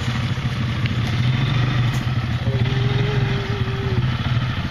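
Quad bike (ATV) engine running at low, steady revs as the quad creeps down a steep rocky slope. A thin steady tone sounds briefly in the middle.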